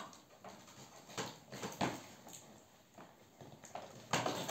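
Cardboard and plastic toy packaging being handled: irregular rustles, scrapes and knocks, with a louder knock about four seconds in as the long box is lifted.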